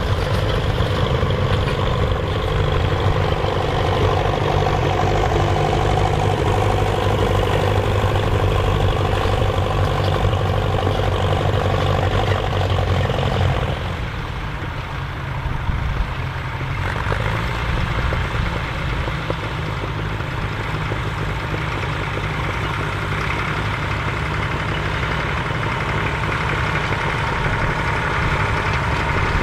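Massey Ferguson 35 tractor engine running steadily under load while pulling a plough. About halfway through the sound changes and becomes a little quieter.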